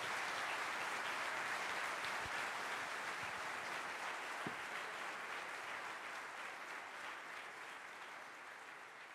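Audience applauding, a steady clapping that gradually fades over the last few seconds.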